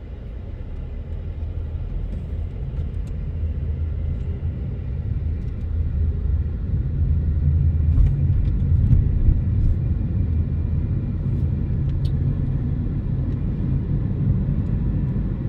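Car road noise heard from inside the moving car: a steady low rumble of engine and tyres that grows louder over the first several seconds, then holds steady.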